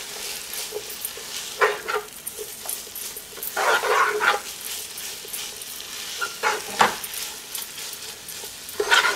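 Shredded chicken and spring onions sizzling gently in oil in a saucepan as they are stirred with a silicone spatula. Four short louder sounds stand out over the sizzle, the longest about four seconds in.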